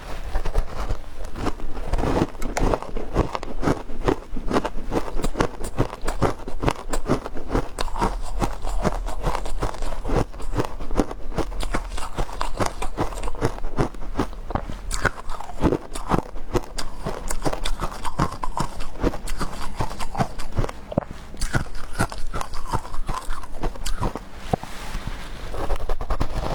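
Frozen matcha ice being bitten and chewed, with a dense, irregular run of crunching and cracking.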